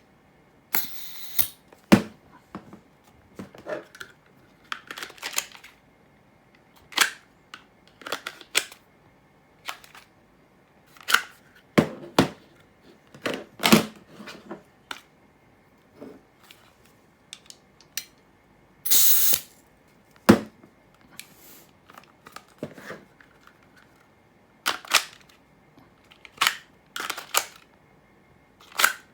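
Airsoft M4 magazine being pushed into and drawn out of a kydex magazine pouch again and again: sharp hard-plastic clicks and snaps at irregular intervals, with a few short scraping slides.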